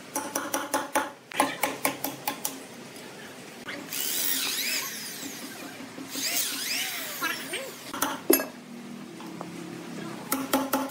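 A hammer striking steel staples into the cracked end grain of a large log, two quick runs of sharp, ringing metallic strikes. A corded electric drill then bores into the end of the log in two runs of about a second each, its pitch rising and falling. One more strike follows, and another quick run of hammer strikes comes near the end.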